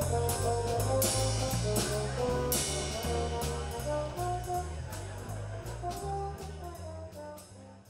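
Instrumental background music: a bass line moving in steady, even notes under held melody notes, with regular sharp percussive hits, fading out gradually to near silence at the end.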